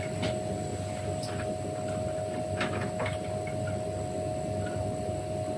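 Steady background hum and room noise, with a few light clicks and taps from hands handling the small wires and parts of an electronics kit.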